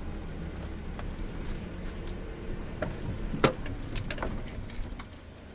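Car driving slowly over a rough dirt track, heard from inside the cabin: a low engine and road rumble with several sharp knocks as it bumps along, the loudest about three and a half seconds in.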